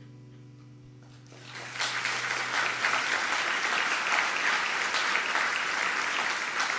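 The last held keyboard chord of a song dies away, and audience applause swells in about a second and a half in, then keeps going as dense, steady clapping.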